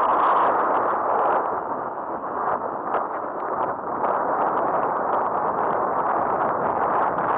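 Steady rushing wind noise on the microphone in a strong wind, a little louder in the first second and a half, with no motor tone to be heard.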